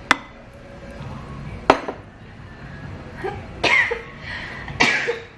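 Two sharp knocks of utensils against dishes at the table, then two short coughs about a second apart.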